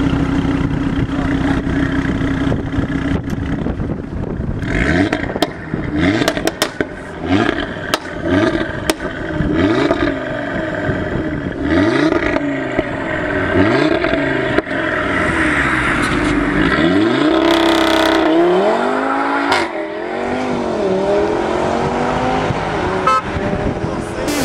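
Audi RS3's turbocharged five-cylinder engine through a Milltek aftermarket exhaust, idling steadily at first. About four seconds in it is revved in a string of quick blips that rise and fall in pitch, with sharp cracks from the exhaust as the revs drop. Later the revs rise and fall in longer, slower sweeps.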